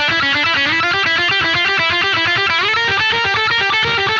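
Music: a fast electric guitar riff, its notes changing several times a second, sliding up about two and a half seconds in.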